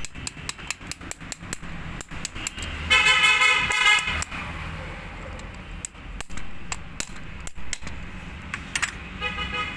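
A vehicle horn honks for about a second, starting about three seconds in, and sounds again briefly near the end. Underneath are a low traffic rumble and a run of small metallic clicks and taps from work on an engine cylinder head.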